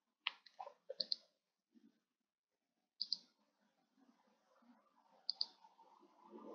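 Computer mouse button clicking: quiet, sharp clicks, several in quick pairs, with pauses of a second or two between them.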